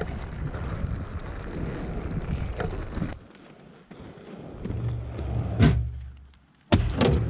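Wind buffeting the microphone with a rolling rumble, cutting out suddenly about three seconds in. The rumble returns, with a sharp knock about two seconds later and another abrupt loud start near the end.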